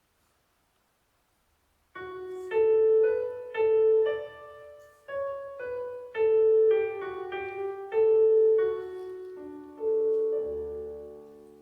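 About two seconds of near silence, then a piano plays a slow melody of single notes over sustained lower notes, each note struck clearly and left to ring, dying away near the end: the piano introduction to a choral piece.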